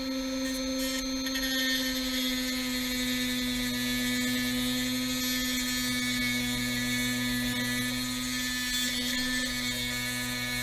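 Dremel rotary tool running at steady speed, its bit grinding the metal bracket of an LED headlight bulb and throwing sparks. A steady whine with a grinding hiss over it.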